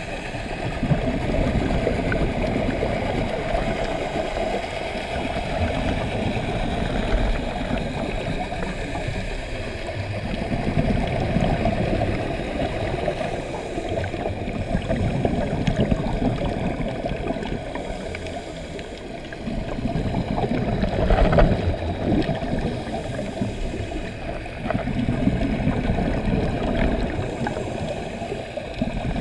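Muffled underwater sound through a camera housing: scuba regulator bubbles gurgling in surges every few seconds over a steady rushing water noise.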